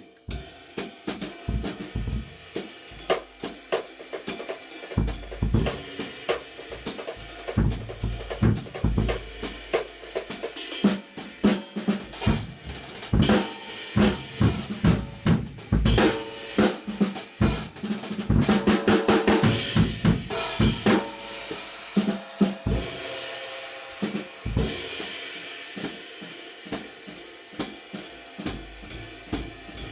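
Drum kit groove around an old Zildjian K Istanbul 20-inch riveted ride cymbal, played with a wooden ride stick, over snare and bass drum. The rivets give the cymbal's wash a sizzle. A busier, louder passage comes about two thirds of the way through.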